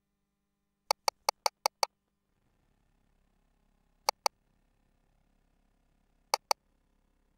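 Short, sharp electronic clicks: a quick run of six, then a pair about two seconds later and another pair near the end, over a faint low hum.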